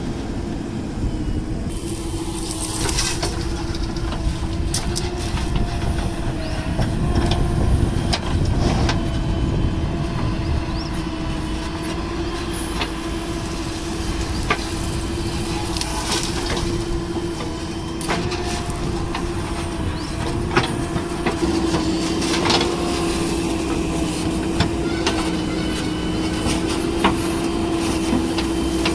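Heavy diesel machinery running steadily with a constant drone, with scattered clanks and knocks of metal throughout.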